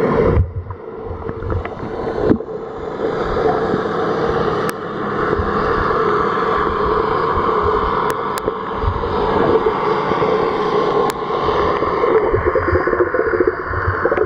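Muffled underwater sound picked up by a submerged camera: a steady rush of water with a low drone through it, and a few sharp clicks.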